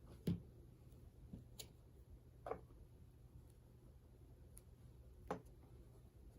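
A few sparse light clicks and taps of small objects being handled on a work surface, the loudest about a third of a second in, against a quiet room.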